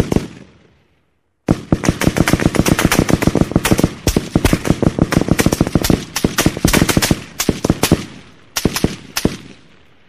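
AK-47 gunfire sound effect: a single shot with a fading echo, then after about a second and a half a long burst of fully automatic fire at roughly ten shots a second, a brief pause, and a short final burst that trails off.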